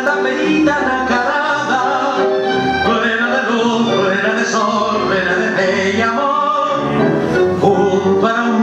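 Argentine tango vals (waltz) played by an orchestra, with a singing voice carried over the band.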